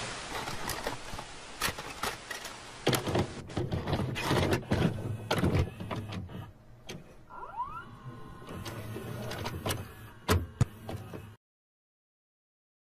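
Analog TV static and VHS tape glitch noise: a hiss broken by many crackles and pops, with a few short rising whistles about seven and a half seconds in. It cuts off abruptly about eleven seconds in.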